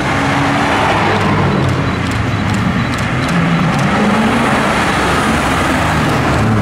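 Performance cars driving past one after another, their engines revving up and down over a steady exhaust note, with a few sharp cracks about two to three seconds in.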